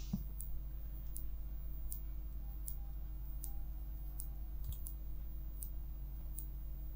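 Faint, evenly spaced clicks, a little more than one a second, over a low steady hum.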